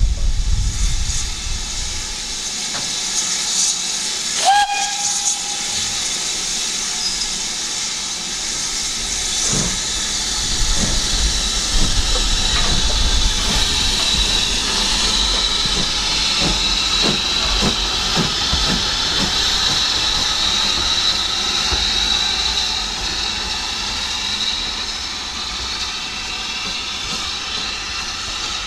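Steam locomotive hissing steadily, with a sharp knock and a brief whistle toot about four and a half seconds in.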